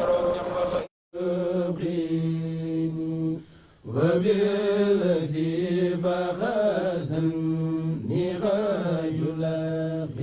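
Unaccompanied male voices chanting a Mouride Sufi devotional chant, holding long notes with sliding melismatic turns. It breaks off briefly about a second in and dips again just before four seconds.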